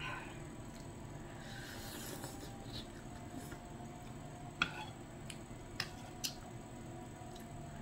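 Eating sounds from glass-noodle soup: slurping of sotanghon noodles, and a metal spoon clicking sharply against the bowl three times in the second half.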